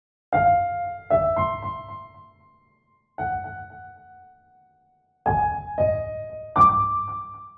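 Computer-generated atonal keyboard notes following a twelve-tone scheme, played one at a time with pauses between. There are about six notes: two near the start, one in the middle and three close together near the end, each struck sharply, then ringing and fading.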